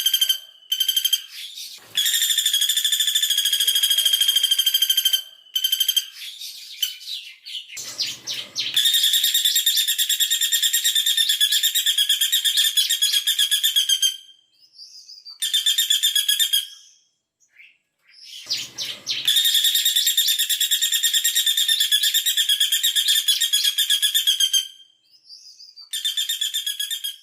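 Female caladi bawang woodpecker calling in long, very fast, shrill trills of several seconds each, separated by short pauses. A couple of brief low knocks or rustles come between trills.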